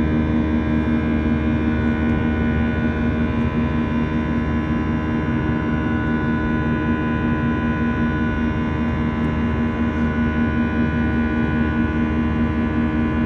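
Airbus A320-200 jet engines heard from inside the cabin in flight: a steady drone with a strong low hum and several steady tones above it.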